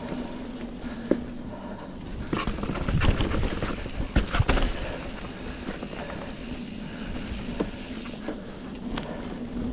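Norco Torrent steel hardtail mountain bike rolling along a dirt singletrack: steady tyre and rolling noise with scattered knocks and rattles from the frame and drivetrain over bumps and roots, loudest about three to five seconds in.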